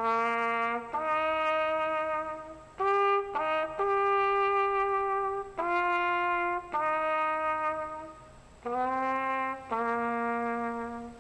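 Unaccompanied brass instrument playing a slow melody, one held note at a time, with a brief break about eight seconds in.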